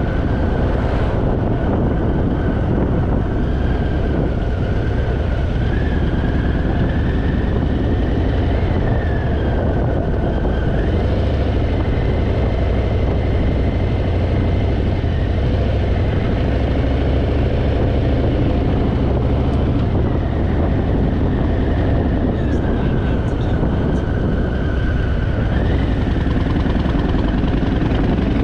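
Harley-Davidson Fat Boy's V-twin engine running steadily while the motorcycle is ridden, with a higher tone that rises and falls a few times.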